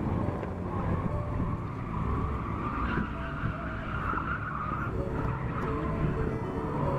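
Car engine running with tyres squealing, a noisy screech that swells in the middle.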